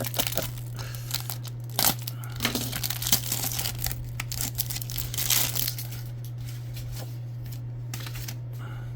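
A trading card pack wrapper being torn open and crinkled by hand, in irregular crackles that thin out after about six seconds, over a steady low hum.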